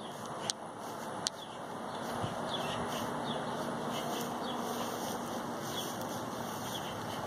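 Outdoor backyard ambience: a steady background hiss with short, falling bird chirps repeating from about two seconds in, and a couple of sharp clicks in the first second or so.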